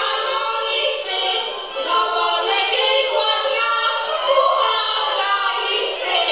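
A small group of women singing a Polish folk song together, with a folk band of fiddle, accordion and double bass behind them. The recording sounds thin, with no bass.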